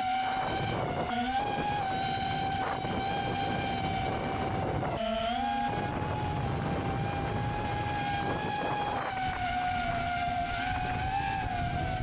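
FPV quadcopter's brushless motors and propellers whining steadily over a rushing noise, the pitch dipping briefly about a second in and again around five seconds.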